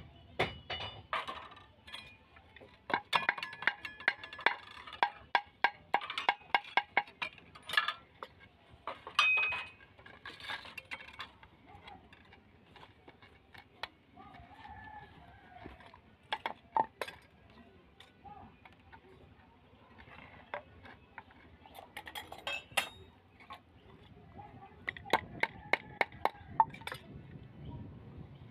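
Irregular metallic clicks and clinks as a thin sheet-metal ferrule is worked onto the end of a wooden axe handle, in quick clusters with quieter gaps between.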